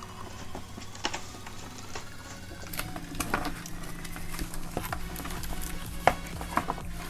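Cardboard and plastic packaging rustling, with irregular clicks and knocks, as a mechanical keyboard is unpacked from its box; the sharpest knock comes about six seconds in. Faint background music runs underneath.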